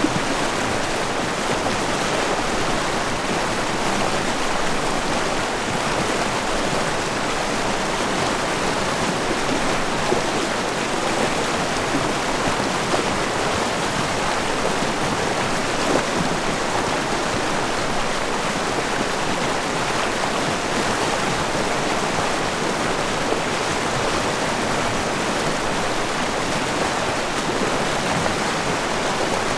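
Fast-moving water of the Snoqualmie River just below Snoqualmie Falls, rushing in a steady, even wash with no let-up.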